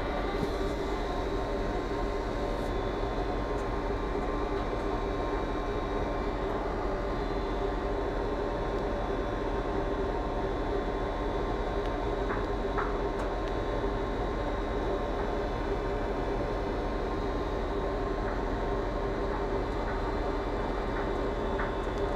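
Steady drone of heavy industrial machinery on an offshore oil rig: a constant rumble with several steady tones on top and a few faint clicks.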